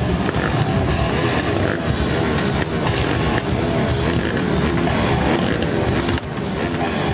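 Loud live rock music on electric guitar and drum kit, with a stunt motorcycle's engine revving in the mix.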